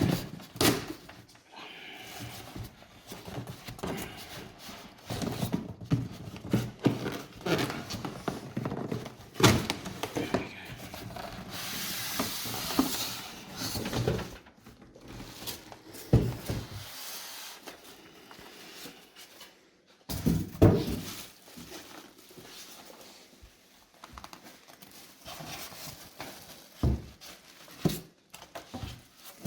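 A computer case being wrestled out of its cardboard box and packing: irregular rubbing, scraping and dull thumps, with a longer rustle about twelve seconds in.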